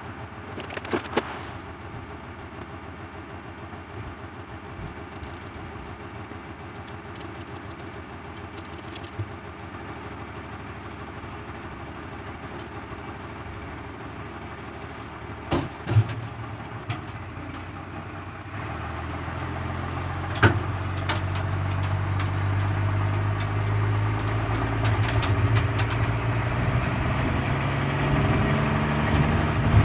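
Vehicle engine running low and steady, then rising and getting louder from about two-thirds of the way through as it pulls away under load. A few sharp knocks sound earlier.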